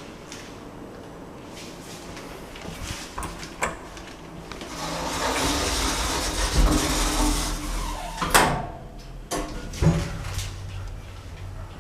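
Lift doors sliding, with a swelling rush of noise over a few seconds and sharp clunks about two-thirds of the way in and again shortly after.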